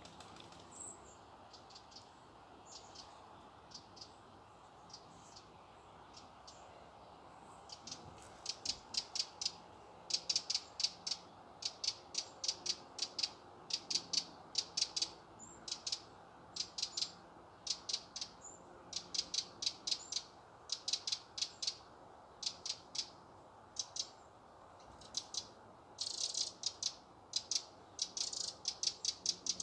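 Wrens calling in short bursts of rapid, sharp, high ticking notes that sound like a rattle. After a quieter start the bursts come about one or two a second, growing denser near the end.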